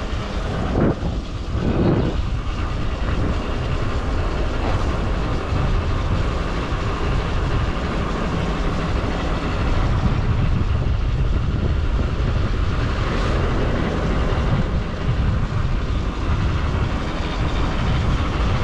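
Motorcycle running at road speed, its engine mixed with wind rumble on the bike-mounted microphone: a steady low rumble throughout.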